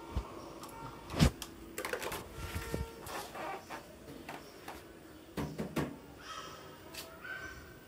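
Several knocks and clicks. The loudest comes about a second in, and a cluster follows around five and a half seconds in.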